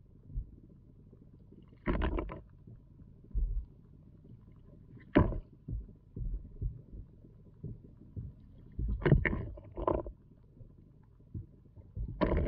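Rocks being dropped and set in a backyard pond, heard from underwater: short clunks and clatters of rock on rock, about five of them a few seconds apart, over a low watery rumble.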